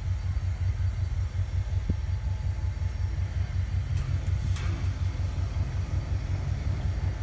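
Electric streetcar running slowly along the track with a low steady rumble, and a couple of sharp clicks about four seconds in.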